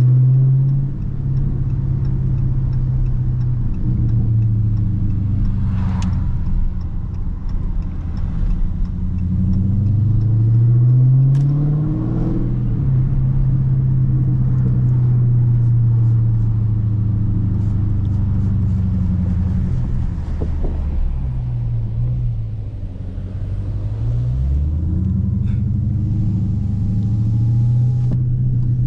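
Dodge Charger Scat Pack's 6.4-litre HEMI V8 running while driving, its engine note climbing under acceleration a third of the way in, falling back as it slows, then climbing again near the end.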